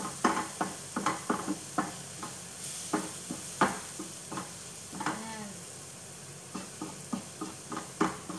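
Wooden spatula stirring and scraping a sizzling onion-and-spice mixture in a frying pan, with irregular knocks of the spatula against the pan over a steady frying hiss. The knocks ease off for about a second past the middle, then resume.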